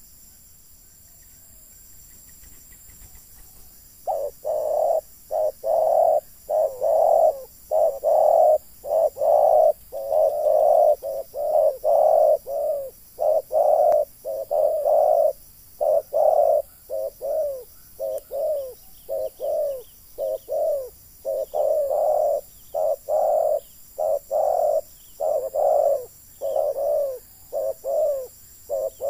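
Spotted doves cooing: a long, unbroken run of short coos, about one or two a second, starting about four seconds in and loudest around the middle.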